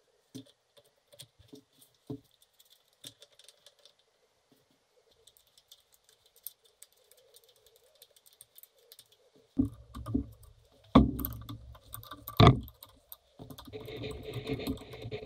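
Small metal parts and tools being handled: scattered light clicks and rattles, then three heavier knocks, then a few seconds of scraping or rubbing near the end.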